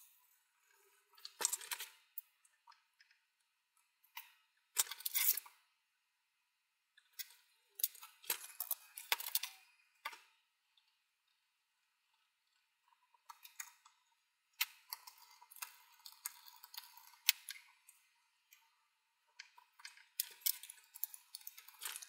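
Intermittent scratchy rubbing and light clicks of hands working inside an open laptop: a cotton swab scrubbing the cooling fan and a tissue wiping around the CPU heatsink. The noise comes in short spells with pauses between them, and there are a few sharper clicks in the second half.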